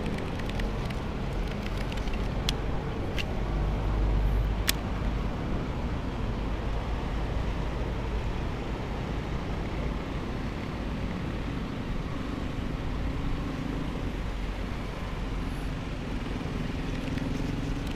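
Steady rumble of road traffic, with a few sharp clicks between about two and five seconds in.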